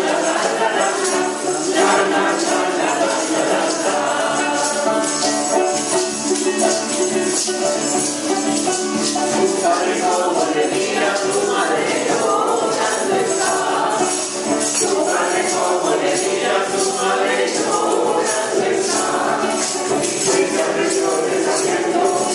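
Choir singing a Spanish-language Christmas carol (villancico), with hand percussion keeping a steady, rhythmic shake.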